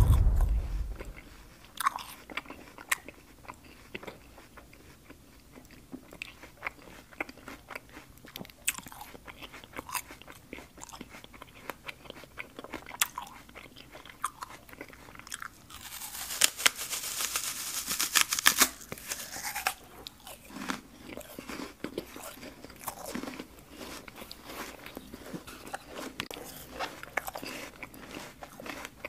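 Chewing and mouth sounds of a man eating jackfruit stewed in coconut milk, close to the microphone: many small irregular clicks and smacks, with a louder hissing stretch of a few seconds past the middle.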